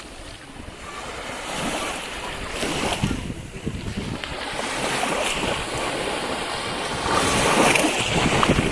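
Ocean surf: waves breaking and washing in surges, with wind buffeting the microphone. The loudest surge comes near the end.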